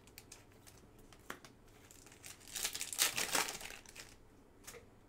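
Foil wrapper of a Bowman Chrome trading-card pack being opened and crinkled, a dense crackle from about two to four seconds in. It is preceded by a few light clicks of cards being handled.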